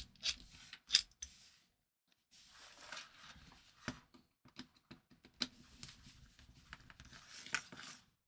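Small clicks and rubbing from handling a car central-locking actuator and its slotted metal bracket and pin, then the scrape and clatter of a screwdriver working on the actuator, with several sharp clicks among the scraping.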